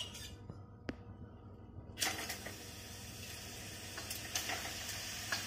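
Grated red pumpkin tipped from a steel pot into a hot brass kadhai, with a faint sizzle starting about two seconds in and a few light clicks as it lands.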